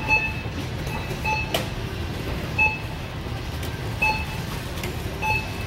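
Checkout barcode scanner beeping as groceries are scanned: about six short single-pitched beeps at irregular intervals of roughly a second. A sharp knock comes about a second and a half in, over a steady low background rumble.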